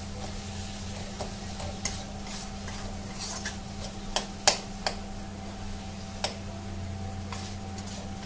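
Spatula stirring masala in a metal kadhai. It scrapes the pan and knocks its side in irregular sharp clacks, the loudest about four and a half seconds in.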